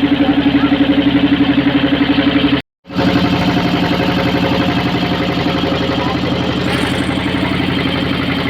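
A motorboat engine running steadily with an even, rapid throb. The sound cuts out completely for a split second just under three seconds in, then carries on.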